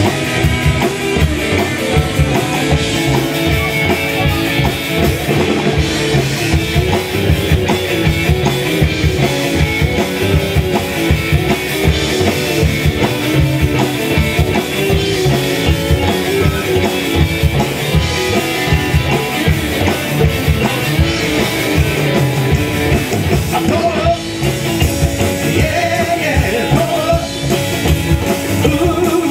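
Live rockabilly band playing: electric guitars over upright bass and a drum kit beat, loud and continuous.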